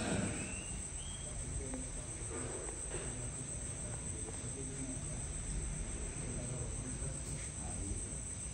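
Crickets chirring: a steady, high-pitched drone that runs on without a break, over a faint low rumble.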